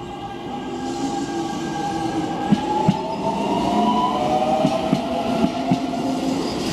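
Keio 7000-series electric commuter train pulling out, its motor whine rising slowly in pitch as it gathers speed. Wheels click over the rail joints from a few seconds in.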